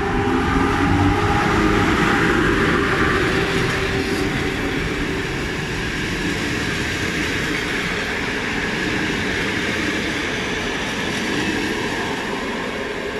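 EP07 electric locomotive and its passenger coaches passing close by. A rising whine comes from the locomotive in the first few seconds, then the coaches roll past with a steady wheel-on-rail rumble that eases slightly toward the end.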